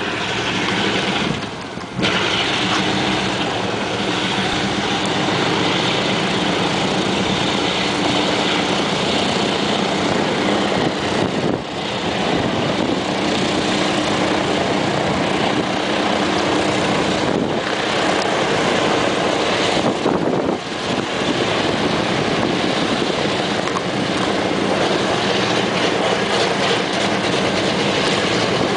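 A Boeing B-17's Wright R-1820 Cyclone nine-cylinder radial engines being started and running at idle: a steady engine drone with brief dips about two, twelve and twenty-one seconds in.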